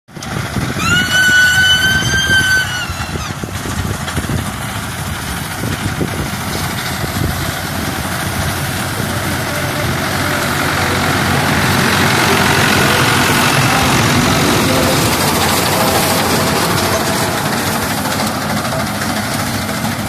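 Tractor engine running steadily as a tractor-mounted reaper cuts standing wheat. About a second in, a loud high-pitched tone sounds for about two seconds over the engine.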